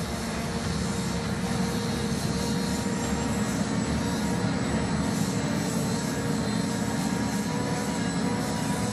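Diesel engines of a heavy military truck and a wheel loader running steadily, a constant drone with a thin high whine above it.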